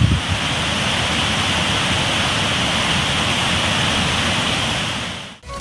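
Muddy floodwater pouring over a river weir: a steady, loud rush of falling water that fades out near the end.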